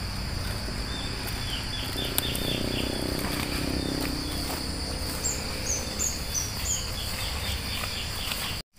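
Outdoor ambience of a steady, high insect drone, like crickets, with birds chirping repeatedly in short high calls, a cluster of them about five to seven seconds in. The sound drops out for a moment just before the end.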